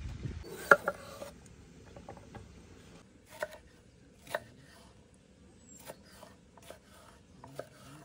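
Kitchen knife slicing through a green bell pepper, the blade knocking on a wooden cutting board in separate sharp taps roughly once a second. The loudest is a sharp knock just under a second in.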